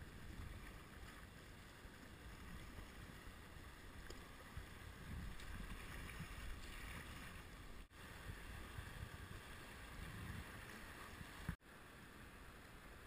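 River current rushing around a whitewater canoe, heard from a camera on its bow, with wind buffeting the microphone in a low rumble. The sound drops out briefly twice.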